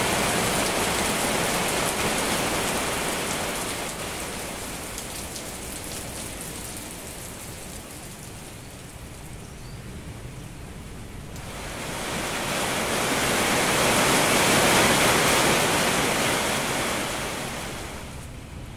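Heavy rain, a steady rushing hiss that fades down about four seconds in, swells back up around twelve seconds in, and drops off again near the end.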